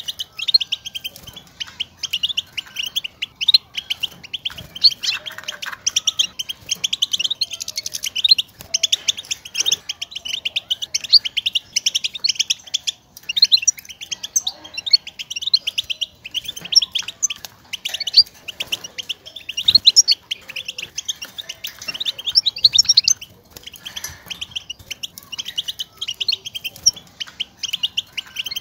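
European goldfinch twittering: a fast, unbroken stream of high chirps and call notes. These are the stimulating contact calls that goldfinches use to call to one another, not their full song.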